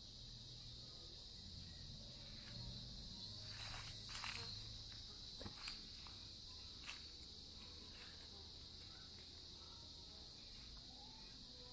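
Faint, steady high-pitched insect chorus, like crickets, with a few brief rustles and clicks about four to seven seconds in.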